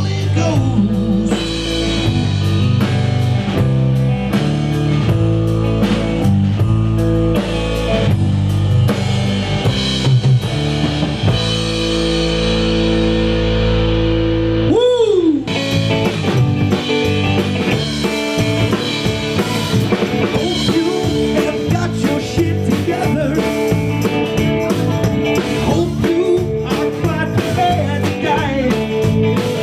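Live rock band playing: drum kit, electric guitar and singing. About halfway through there is a quick pitch glide, and the music changes abruptly to a different passage.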